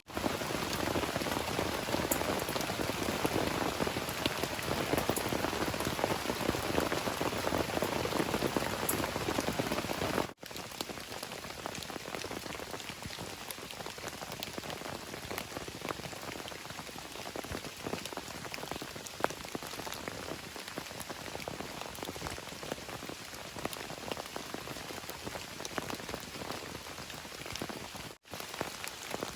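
Steady rain falling, with many separate drops striking. It is heavier for about the first ten seconds, then an abrupt cut leaves lighter rain, with another brief cut near the end.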